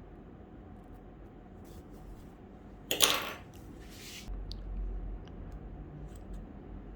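Handling noises while stitching is unpicked from a dress: a sharp loud noise about three seconds in, then softer rustles, small clicks and low knocks as the fabric and tools are moved.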